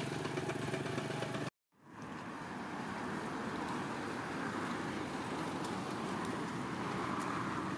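Steady outdoor background noise with no clear single source. It drops out abruptly about a second and a half in and fades back up over the next half second.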